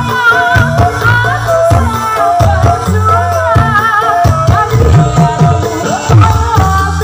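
Live campursari music through a large PA system: a woman sings a wavering melody over keyboard, bass and drums.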